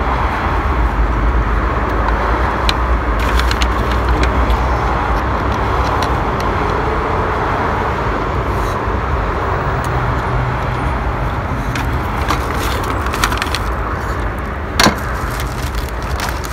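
Steady rumble of surrounding road traffic, with a few sharp clicks scattered through and one louder knock near the end.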